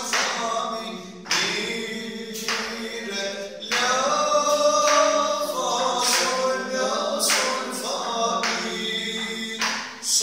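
A man singing the notes of a peşrev in makam Hüseyni as solfège, one short sung syllable after another, with a steady low tone held underneath throughout.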